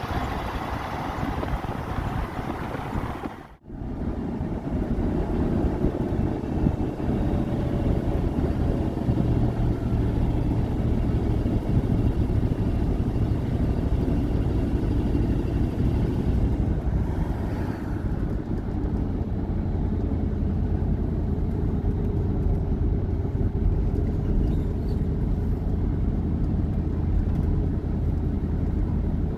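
Pickup truck driving on the road: steady engine and road rumble. It breaks off for a moment about three and a half seconds in, then carries on lower and heavier.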